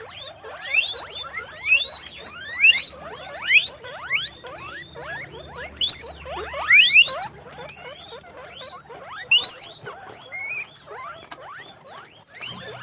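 Guinea pigs wheeking: a chorus of high, rising squeals, several a second, with calls overlapping one another.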